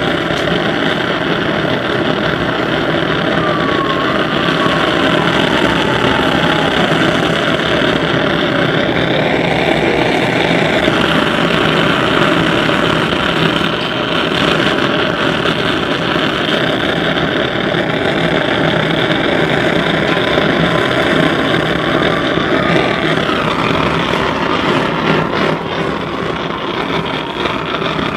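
Gas blowtorch with a brass burner nozzle running steadily, a loud even rushing roar of the flame, as it is played on a burning plastic toy soldier.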